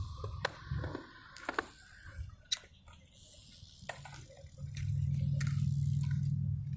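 Skateboard on pavement: scattered clicks and knocks of the board, then from about halfway a steady low rumble of its wheels rolling.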